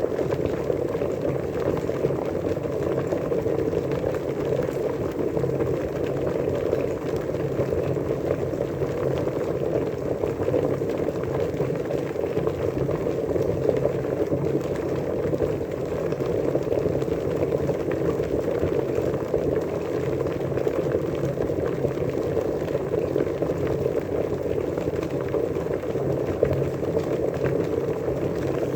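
Water boiling, a steady dense bubbling.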